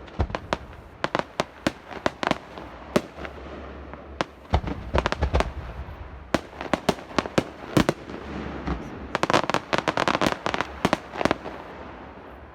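Fireworks display going off: an irregular run of sharp bangs and crackles over a steady rumble, thickening into a rapid cluster of cracks near the end before easing off.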